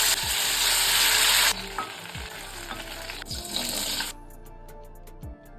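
Chilli chicken frying in a hot pan with a loud sizzle for the first second and a half, then a quieter sizzle that swells once more and stops about four seconds in.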